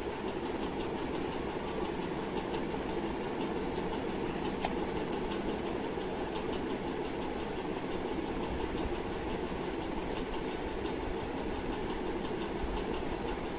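Steady mechanical hum, with faint scratches of a pencil drawing lines on paper against a plastic scale.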